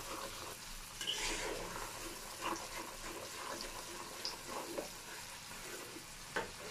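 Chopped onion and green chillies sizzling in hot oil in a karahi, with a metal spatula scraping and knocking against the pan every second or so as they are stirred.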